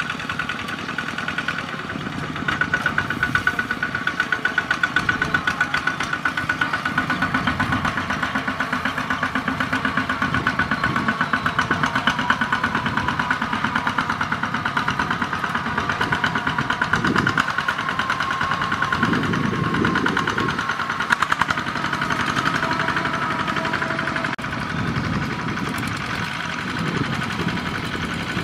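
Single-cylinder diesel engine of a Kubota two-wheel walking tractor running under load while pulling a trailer. It makes a fast, steady chugging that gets louder about two and a half seconds in.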